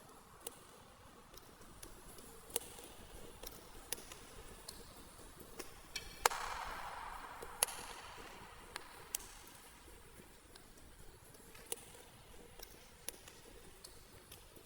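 Scattered light knocks and clicks, with one sharper knock about six seconds in followed by a second or two of rustling.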